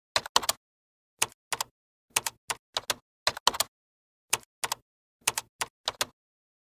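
Typing sound effect: sharp key clicks in quick, irregular groups of two or three, stopping about six seconds in.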